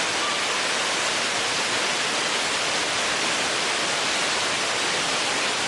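Waterfall rushing, a steady, even roar of falling water.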